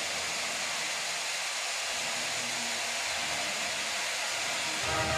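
Steady stadium crowd noise, the crowd cheering a touchdown. Music with sustained notes comes in near the end.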